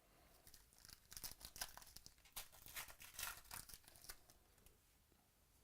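A trading-card pack's foil wrapper being torn open and crinkled: a run of faint crackling rustles lasting about three seconds.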